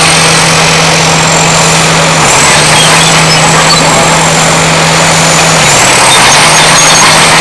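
Caterpillar D7 bulldozer's turbocharged diesel engine working under load, with a thin high turbo whistle over a steady engine note. The whistle drops a little in pitch about two seconds in and climbs back up again near six seconds.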